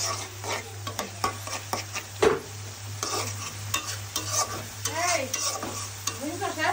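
Spatula stirring and scraping through a pan of spiced onion masala with shrimp as it sizzles, fried down (kosha) to cook the spices, with a steady low hum under it.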